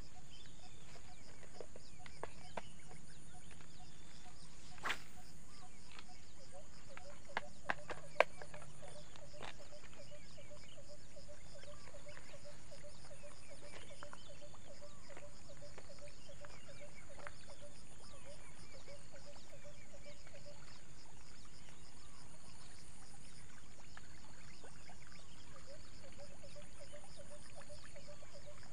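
Steady outdoor chorus of swamp wildlife, frogs and insects, going on without a break. A few sharp clicks stand out about five seconds in and again around seven to eight seconds in, the last one the loudest.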